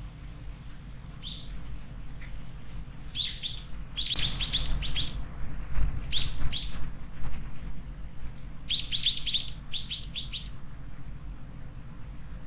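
A small wild bird calling in quick runs of short, sharply falling chirps, in about five bursts.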